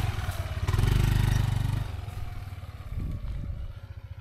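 Motor scooter engine revving up as the scooter pulls away along a rough dirt track, with one strong surge of revs about a second in, then growing fainter as it rides off.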